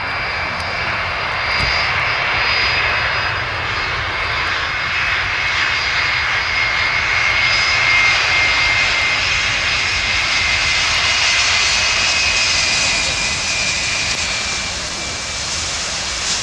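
Boeing 757 airliner landing and rolling out on a wet runway: the jet engines give a steady rushing roar with a high-pitched whine on top, swelling to its loudest about halfway through as the aircraft passes.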